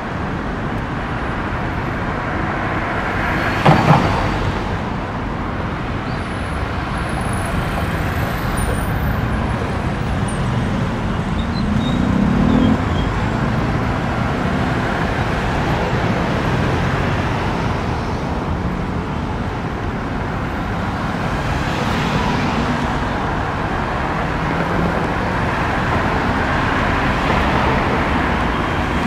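Steady road traffic noise from cars passing on a city street, swelling as a vehicle goes by about twelve seconds in. A short sharp double knock sounds about four seconds in.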